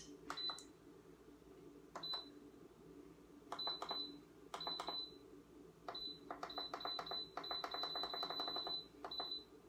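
Instant Pot control panel beeping as its buttons are pressed to set the cooking time: a few single short high beeps at first, then a quick run of beeps from about six seconds in until nearly nine seconds as the time is stepped along.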